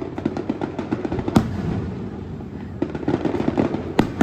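Aerial fireworks going off: rapid crackling salvos of many quick reports, with a louder single bang about a second and a half in and another near the end.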